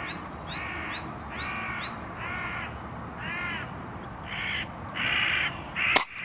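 Crows cawing over and over, one harsh caw about every second, with a run of short rising whistled notes in the first two seconds. A single sharp crack comes near the end and is the loudest sound.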